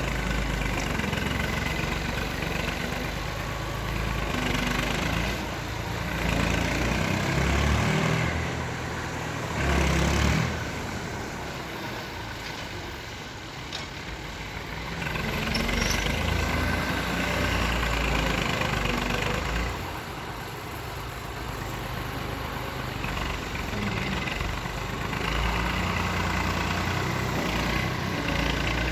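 Excavator's diesel engine running, rising and falling in long surges every several seconds as it works. There is a brief louder burst about ten seconds in.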